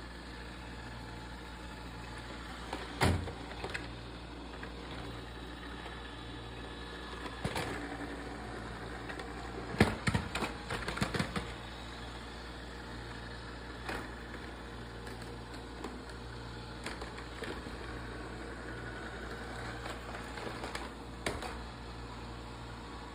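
Robot vacuum running with a steady hum, its wheels and body knocking and clattering now and then as it climbs a ramp over a door threshold; the loudest run of knocks comes about ten seconds in.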